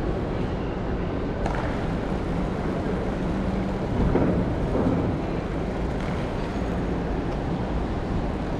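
Steady low rumbling background noise of an outdoor walk, with a brief louder swell about four seconds in.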